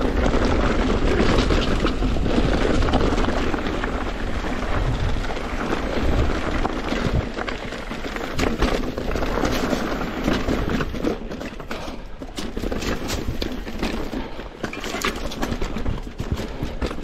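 Mountain bike riding down rocky singletrack: tyres crunching over dirt and rock, with the bike clattering over stone ledges, in many sharp knocks from about halfway on. Heavy wind rumble on the handlebar-mounted camera's microphone runs under it.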